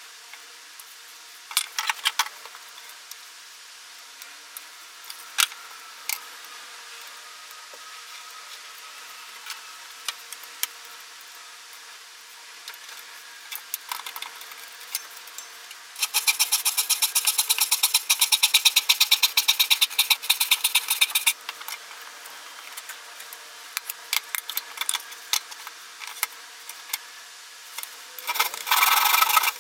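Scattered light knocks and clicks of wood being handled, then a saw cutting spruce board in a fast, even run of strokes for about five seconds. The sawing stops and starts again near the end.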